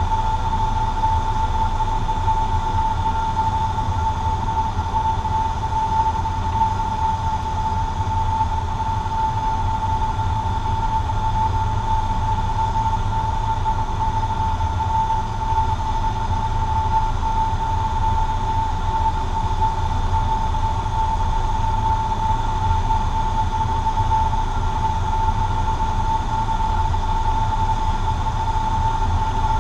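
Steady drone of a Cessna 150J's four-cylinder Continental O-200 engine and propeller heard from inside the cabin in flight, with a constant low rumble and a steady high tone over it.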